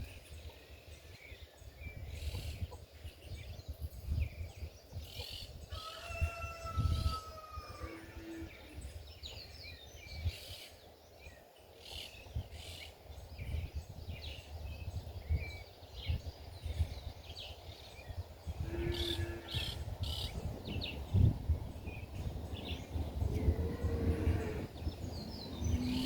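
Wind gusting on the microphone in open countryside, a rumble that rises and falls. Many small birds chirp over it, and a few short, lower animal calls come now and then.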